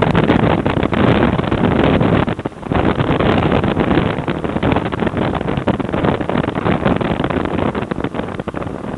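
Loud engine, tyre and wind noise inside the cabin of a stripped, roll-caged autocross car under way. It drops for a moment about two and a half seconds in, then gradually eases as the car slows.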